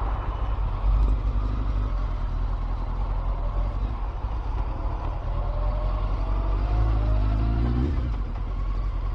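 Honda CBR900RR Fireblade's four-cylinder engine pulling under a heavy low rumble of wind and road noise. The engine note climbs from about three seconds in and drops away sharply near eight seconds.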